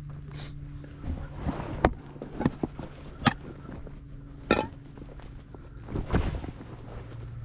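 Footsteps crunching on railroad ballast rock, irregular steps with a few sharper crunches, over a steady low hum.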